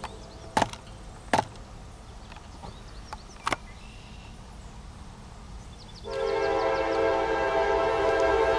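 Diesel freight locomotive's air horn sounding a long steady blast that starts about six seconds in, the crossing warning of an approaching train. Before it, three sharp knocks over a faint rumble.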